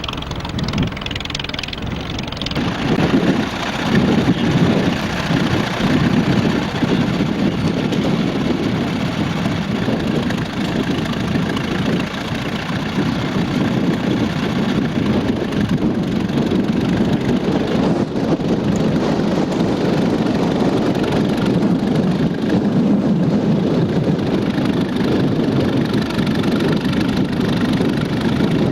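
A tractor engine running steadily, rising in level about three seconds in and then holding.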